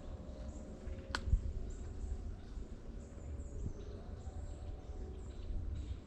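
Outdoor background noise: a low, uneven rumble with faint high chirps, and one sharp click about a second in.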